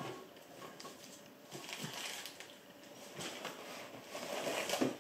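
Rustling and light clicks of survival-kit items and their packaging being handled and unpacked.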